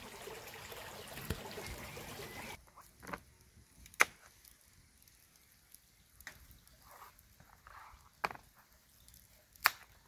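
Steady rush of a small woodland stream, which stops abruptly about two and a half seconds in. Then a knife slicing a carrot on a plastic chopping board, a few sharp taps one to two seconds apart.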